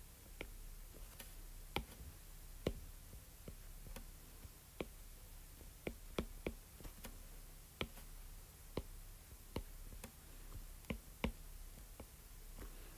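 Irregular sharp clicks and taps of a stylus on a drawing tablet as coloured shapes are drawn and colours are picked, over a faint steady electrical hum.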